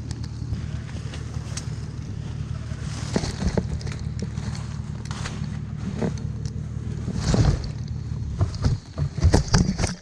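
An engine runs steadily while a tree is pulled over: wood cracks and snaps, growing heavier from about three seconds in. Near the end the tree crashes down with a series of hard thuds as trunk and branches land right on top of the camera.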